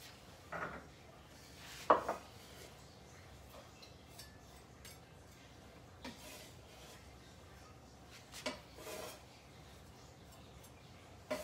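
Scattered clinks and knocks of pots and cooking utensils being handled, the loudest a quick pair about two seconds in, then a few more at intervals of several seconds.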